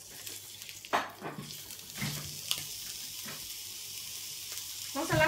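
Raw ground-beef patty laid into a hot oiled frying pan, starting to sizzle about a second in and frying with a steady hiss.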